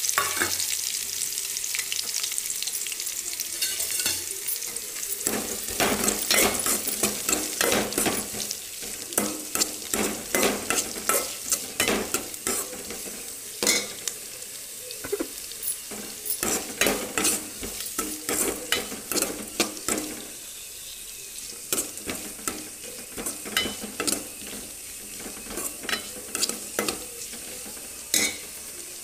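Chopped onions sizzling as they fry in hot oil in an aluminium pot, the sizzle loudest at first and dying down over the first few seconds. A steel ladle scrapes and knocks against the pot again and again as the onions are stirred.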